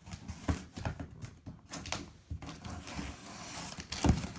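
Fingers picking and scratching at packing tape on a corrugated cardboard shipping box: scattered light taps and scrapes, a short rasp a little before the end, then two louder knocks near the end as the box is worked open.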